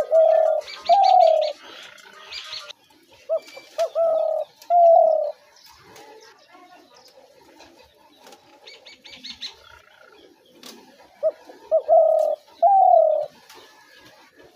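A spotted dove calling three times, each call a short note or two followed by two longer coos. A rapid high chittering from another bird sounds twice behind it.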